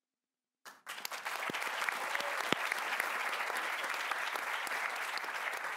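Audience applauding: dense, steady clapping from many hands that starts sharply under a second in, after a brief silence.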